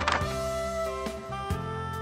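Instrumental background music with sustained, held notes, and a brief swoosh right at the start.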